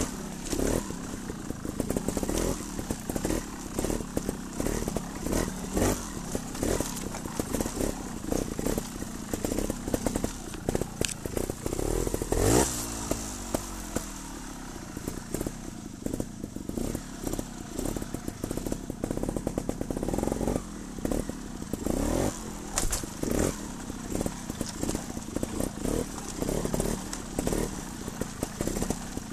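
Trials motorcycle engine running at low revs with short, irregular throttle blips, and one longer rev that rises and falls about twelve seconds in.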